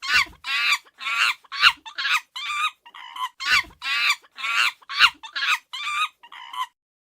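A chimpanzee giving a run of about a dozen short, high-pitched, wavering calls, roughly two a second, that stop shortly before the end.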